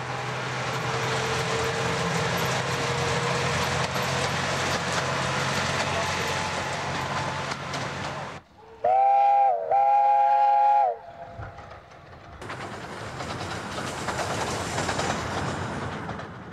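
Ravenglass & Eskdale Railway steam locomotive Northern Rock working, a steady rushing hiss with a low hum. About nine seconds in, its whistle sounds twice, the second blast longer and sagging in pitch as it ends, before the running noise returns.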